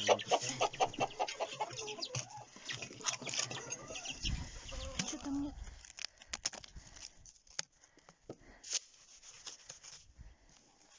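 Chickens and young chicks calling busily for the first few seconds, rapid repeated peeps and clucks. Then it goes quieter, with scattered soft scrapes and clicks as snow is rubbed by hand over a plastic feeder dish to clean it.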